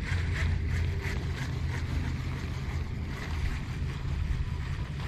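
Wind buffeting the microphone in a steady low rumble, over a faint repeated whirr of a baitcasting reel being cranked as a lure is retrieved.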